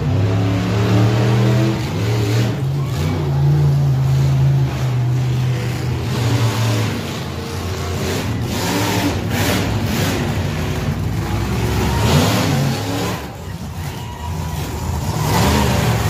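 Monster truck engines running loud and revving hard as the trucks drive across a dirt track, with the engine note rising over the first several seconds.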